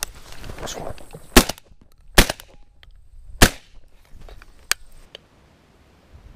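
Three shotgun shots in quick succession, the second under a second after the first and the third just over a second later, followed by a couple of fainter sharp clicks.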